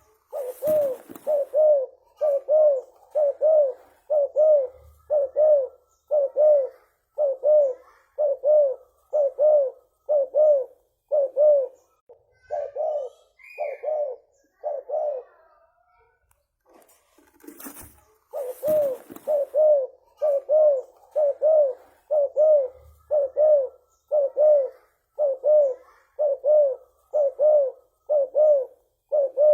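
Spotted dove (tekukur) cooing in a long run of short, evenly repeated coos, about three every two seconds. The coos pause for a few seconds in the middle, then resume. A brief rustle comes near the start and again just after the pause.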